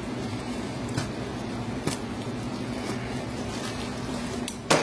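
Plastic wrapping crinkling and tearing as it is sliced open with a razor knife, with a few sharp crackles, the loudest near the end, over a steady low hum.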